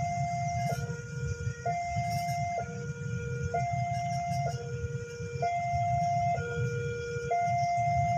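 Two-tone hi-lo siren alternating steadily between a higher and a lower note, each held just under a second, over a low vehicle rumble.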